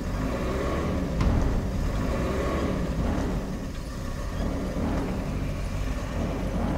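Car engine running, low and steady, as a car pushes a wrecked race car up a ramp into an ambulance. A single sharp click comes about a second in.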